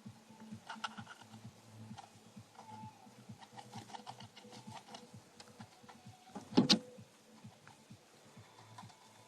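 Hamster eating: scattered small crunching clicks of its teeth on food. One louder thump about six and a half seconds in.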